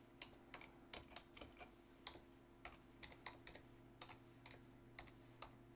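Faint keystrokes on a computer keyboard, typing a short phrase at an irregular pace of about three keys a second, over a low steady hum.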